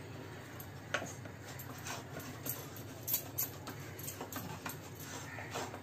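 Hands patting and pressing a soft, cooked coriander and gram-flour mixture flat on a plate: faint, irregular soft pats and small clicks, a few each second.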